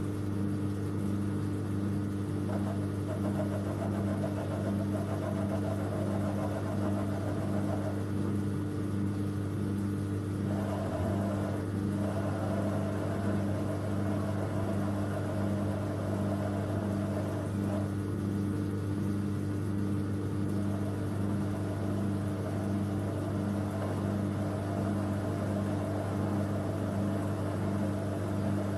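Schaublin bench lathe running steadily, its motor and spindle giving an even hum, while a cutter takes light cuts across the end of a high-tensile bolt held in a collet chuck.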